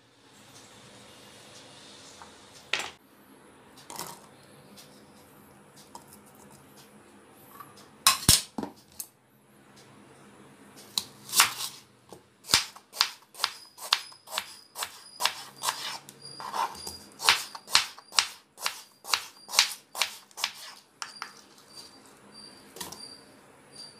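A kitchen knife chopping a red onion on a wooden cutting board. There are a few separate knocks at first, then from about halfway a quick, even run of chops, about two a second.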